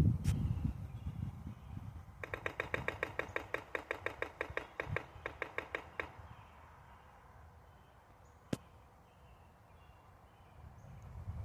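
Woodpecker pecking in a rapid series of taps, about eight a second for roughly four seconds, each tap ringing with a clear pitch. A single sharp click comes just after the start and another about eight and a half seconds in.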